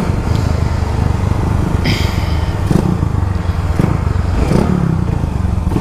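Motorcycle engines running steadily at riding speed, a low drone, with a brief hiss about two seconds in.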